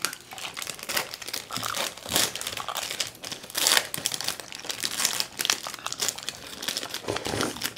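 Ice cream wrappers crinkling as they are handled and peeled open, a run of short, irregular crackles.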